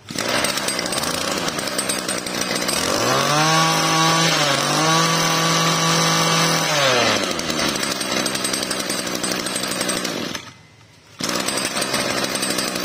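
Mitsubishi TLE27 27cc two-stroke brush cutter engine pull-started, catching at once and running. About three seconds in it revs up and holds high with a short dip, then drops back to idle around seven seconds in. Near ten seconds the sound drops out for about a second, then the engine is heard running again.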